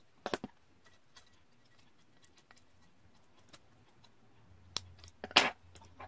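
Small plastic clicks and ticks from handling a 2008 Honda Civic power window master switch circuit board, with a cluster of clicks at the start and a louder, short scratchy scrape about five seconds in.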